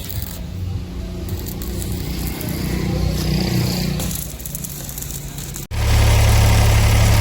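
An engine running steadily with a low rumble. About three-quarters of the way through there is an abrupt break, after which a louder, steady engine hum continues.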